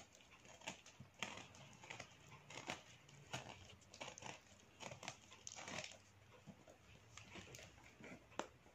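Faint, irregular scratching and tearing as a cutter blade works through brown packing tape on a small cylindrical parcel, with short rustles and clicks several times a second.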